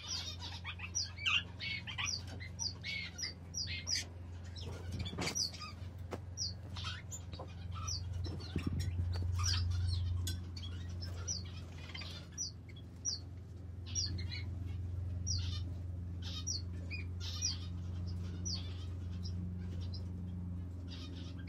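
Lineolated parakeets chirping: short, high chirps repeated through most of the stretch, thinning out near the end, over a steady low hum.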